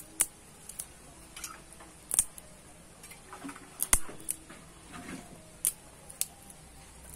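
Dry twigs snapped by hand: a series of sharp, separate cracks at uneven intervals, the loudest about two and four seconds in.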